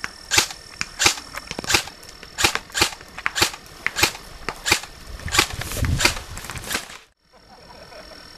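Airsoft guns firing: a run of sharp, snapping shots, about two to three a second, with a brief low rumble about six seconds in. The shooting cuts off abruptly about seven seconds in.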